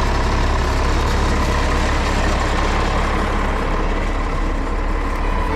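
Vehicle engine running steadily while driving, with a heavy low rumble.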